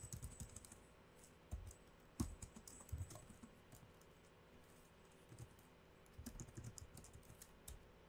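Computer keyboard typing, faint keystrokes in short bursts with pauses between them.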